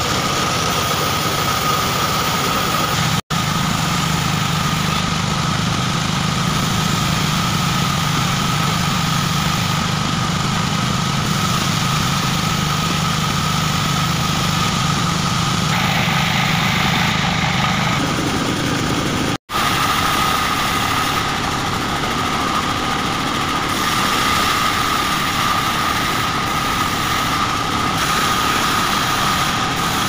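Band saw running steadily while cutting wood, a constant machine noise with a high steady whine from the blade. The sound changes character a little past halfway and drops out for an instant twice.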